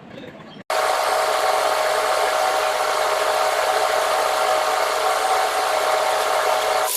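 A machine motor running steadily with a constant whine over a hiss. It starts abruptly just under a second in.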